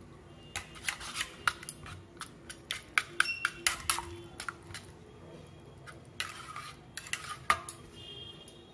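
Metal wire whisk clinking and scraping against a stainless-steel bowl while whisking yogurt, in quick irregular strokes. The strokes thin out about halfway, then a few sharper clinks come near the end.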